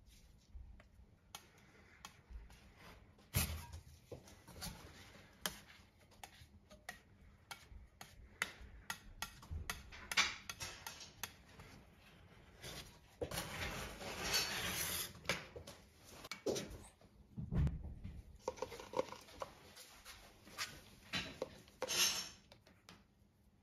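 Steel spatulas scraping and tapping on a cold steel rolled-ice-cream pan, pushing frozen ice cream into rolls. Many short clicks and taps, with longer scrapes about halfway through and again a little later.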